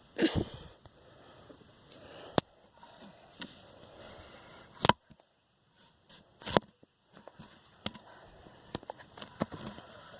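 Faint rustling with a few scattered sharp clicks and knocks, the loudest about five seconds in.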